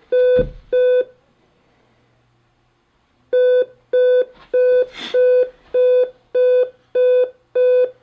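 Alienware M17x R3 laptop giving a POST beep code: two short beeps, a pause of about two and a half seconds, then a run of eight evenly spaced beeps, about two a second. The beeps are the warning that the newly fitted graphics card is not working and the screen stays blank; the owner suspects the card is badly seated, not recognised by the BIOS, or incompatible.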